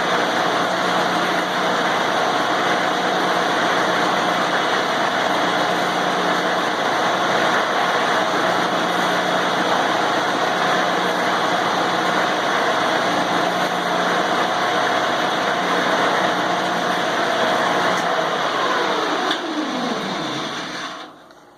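Angle grinder running steadily with its grinding wheel pressed against a snowblower tire, spinning the tire to spread Fix-A-Flat sealant inside it. About 18 seconds in it is switched off and its whine drops in pitch as it spins down, dying away near the end.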